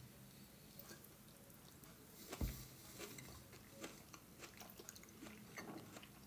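Faint, quiet mouth sounds of a person chewing soft gnocchi, with small scattered clicks and a single soft knock about two and a half seconds in.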